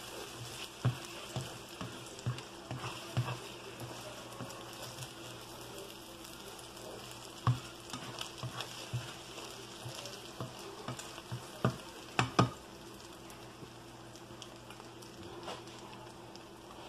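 Eggs and bell peppers sizzling in a nonstick frying pan, with the spatula and pan knocking and scraping for the first twelve seconds or so; the loudest knocks come about 7 and 12 seconds in, after which only the steady sizzle goes on.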